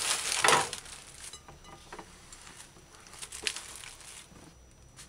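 Plastic bags rustling and crinkling as ingredients are moved around on a kitchen counter, with a louder rustle about half a second in and a couple of light knocks later.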